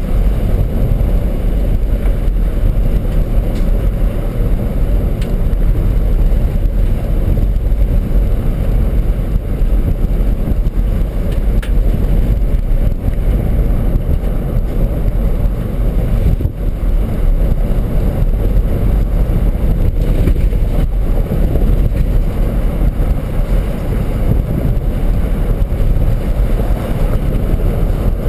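A 2006 Ford F-150 driving along an unpaved road, heard from inside the cab: a steady rumble of engine and tyre noise.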